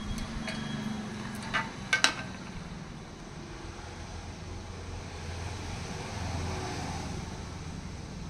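A few sharp clicks and taps from small speaker parts being handled, two of them close together about two seconds in, over a steady low background rumble.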